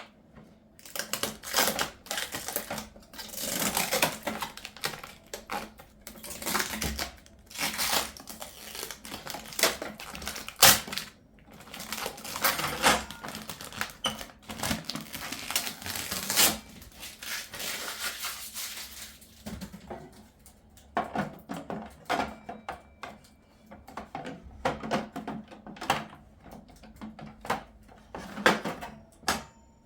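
Crinkling and rustling of something being handled, in repeated bursts, giving way about two-thirds of the way through to scattered light clicks and taps.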